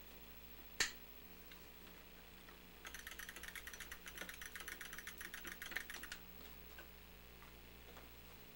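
A single sharp click about a second in, then a fast, faint clatter of small clicks for about three seconds as a hand-built accelerometer box with a brass slug and micro switches is handled and pressed onto a metal-edged plastic drive box.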